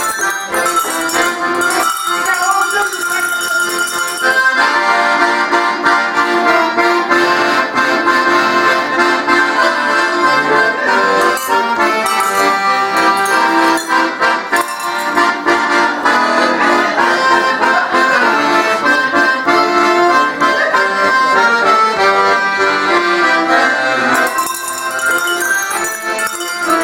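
Accordion and a set of cow bells playing a tune together. The accordion fills out about four seconds in and thins again near the end, where the bright bell ringing stands out more.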